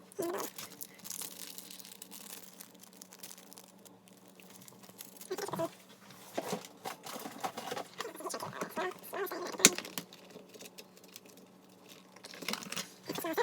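Handling noises: irregular small clicks, taps and rustling, with one sharper click near the middle, over a faint steady hum.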